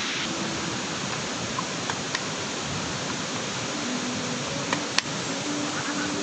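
Steady rush of a waterfall, with a few sharp taps of a knife on a wooden cutting board as garlic is cut: two around two seconds in and two more around five seconds in.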